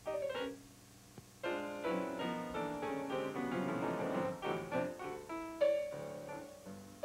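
Piano music: a quick falling phrase, a short pause, then a busy run of notes and chords, ending on a held note near the end.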